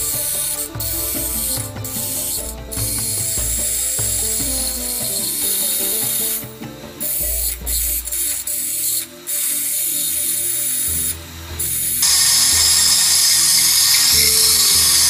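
Bench grinder running with a hand-held dressing tool pressed against the spinning wheel, a rattling, hissing scrape as the wheel face is ground down to true and bevel it. The scrape breaks off briefly several times as the tool lifts, then runs louder and steadier for the last few seconds.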